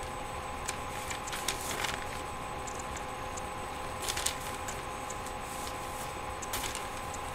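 Steady faint hum with a few soft clicks and rustles in three small clusters, about one and a half, four and six and a half seconds in.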